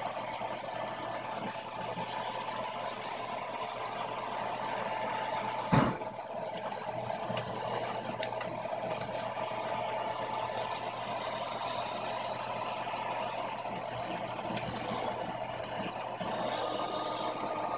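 ShopBot CNC machine running a drag-knife cut through corrugated cardboard: a steady mechanical hum from the gantry drive, with one sharp knock about six seconds in.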